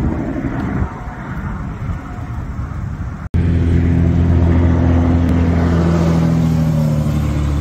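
Semi-truck diesel engine running with a steady low drone as a tractor-trailer moves past. Before that, an uneven rush of traffic noise breaks off suddenly about three seconds in.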